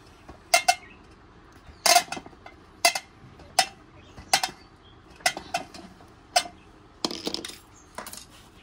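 Sharp metallic clicks and clinks, about ten in all, from a screwdriver and cutting pliers working a stuck terminal screw on an electric rice cooker's heating-element terminal; the screw is seized by heat and dust. A longer clatter about seven seconds in, as the tools are put down.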